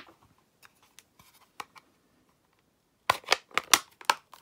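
A few faint taps, then a quick run of sharp, papery rustles and snaps about three seconds in as a sheet of cardstock is handled on the craft table.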